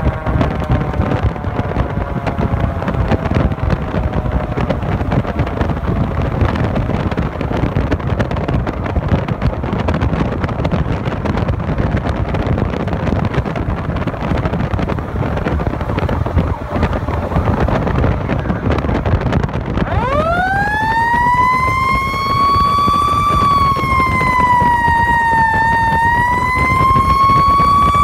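Fire engine driving at speed, with steady engine and road noise. In the first few seconds a siren fades with falling pitch. About twenty seconds in, a siren winds up sharply and wails, its pitch dipping and rising again.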